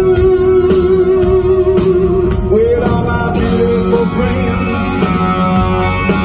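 Live rock band playing loud in an arena: electric guitar over bass and drums, with a long held note in the first couple of seconds that then slides up. Recorded on a phone from the crowd.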